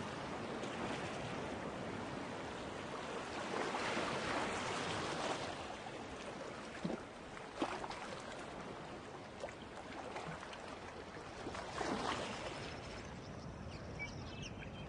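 Rushing sea water and waves, swelling and easing every several seconds, with a few light knocks. Faint high chirping calls begin near the end.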